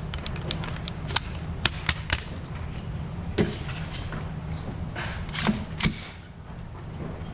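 Handling noise from a 9mm AR-15 carbine just after a magazine change: about eight sharp, uneven clicks and clunks as the charging handle is worked and the rifle is set down on its bipod, over a steady low hum.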